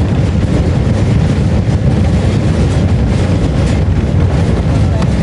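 Horse-drawn tram rolling along its rails: a steady low rumble from the wheels on the track.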